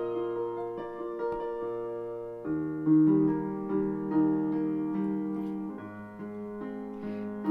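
Instrumental music: a keyboard playing slow, sustained chords that change every second or so.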